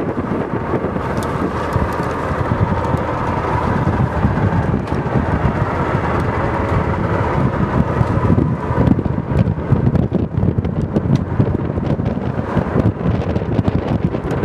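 Strong wind buffeting the microphone aboard a sailboat under way: a loud, gusting rumble that swells more in the second half.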